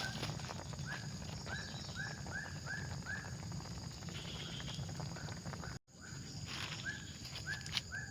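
An animal calling in series of short, arched chirps, several in a row about three a second, over a steady low background rumble. The calls break off briefly near six seconds and start again.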